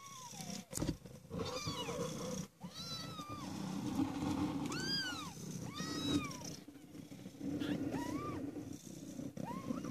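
Ten-day-old Maine Coon kittens mewing: about eight thin, high mews, one after another, each rising and then falling in pitch, over a low steady rumble. There is a single sharp knock about a second in.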